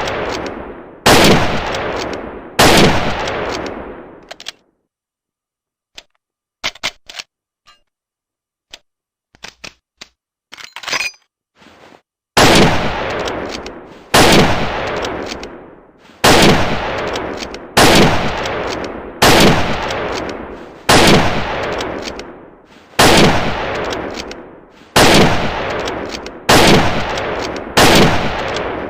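Lee-Enfield No.4 Mk1 bolt-action rifle (.303 British) firing: two shots, each with a long echoing tail, then a run of small metallic clicks, then ten shots in steady succession about two seconds apart.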